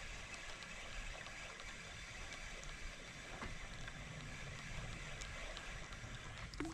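Steady outdoor ambience of wind and water, with a few faint ticks.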